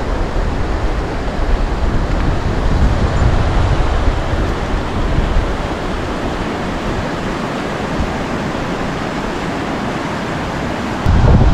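Wind blowing across the microphone: a steady rushing noise with a gusty low rumble that eases somewhat in the second half.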